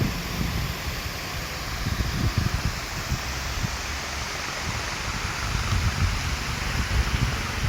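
Steady rushing noise with irregular low buffeting of wind on the microphone.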